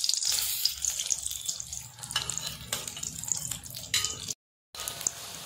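Besan-battered green chillies deep-frying in hot oil in a steel kadai: a steady hissing sizzle with crackles. It cuts out completely for a moment about four seconds in.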